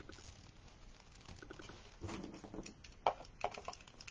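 A plastic zip tie being pulled through and tightened around a wreath pick, with faint rustling and a few sharp clicks about three seconds in. There is a brief low hum about two seconds in.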